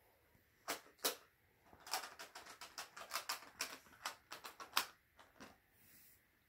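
Hard plastic stacking cups clicking and tapping against each other as the toy is handled. Two clicks come about a second in, then a fast, irregular run of sharp clicks, ending in one loud click near the end.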